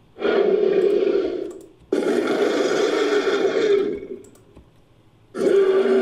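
Designed monster-vocal sound effect for the Genderuwo, an ape-like creature, built from layered creature and monster recordings: a rough, low grunting roar three times. The first lasts about a second and a half. The second runs longer and fades out. The third starts after a short pause, about a second before the end.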